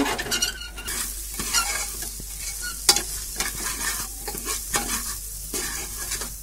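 Steel ladle stirring and scraping rice and spices frying in oil in the bottom of a pressure cooker: a steady sizzle with sharp clinks of the ladle on the pot, the loudest about three seconds in.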